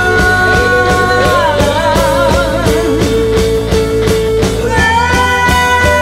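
Psychedelic rock band music with a steady drum beat under long held lead notes; about two seconds in one note wavers with vibrato, and a new set of held chords comes in near the end.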